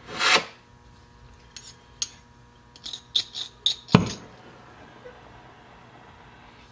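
Small hard objects handled on a workbench: a brief rustle at the start, then light clinks and taps, a quick run of bright clinks about three seconds in, and one sharp knock just before four seconds.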